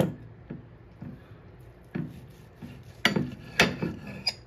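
Kitchen knife slicing through a grilled steak, the blade knocking and scraping on the plate beneath in a string of irregular sharp clicks, the loudest two about three seconds in.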